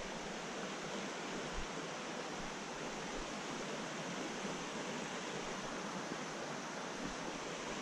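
Shallow mountain trout stream running, a steady, even rush of water.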